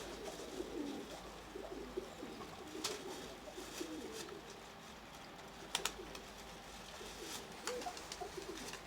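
Domestic pigeons cooing softly and continuously, with a few sharp clicks about three, six and seven and a half seconds in.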